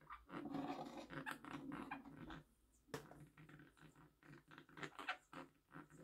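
Quaker parrot making low, harsh angry calls in irregular bursts, densest in the first couple of seconds and then scattered, with a sharp click about three seconds in.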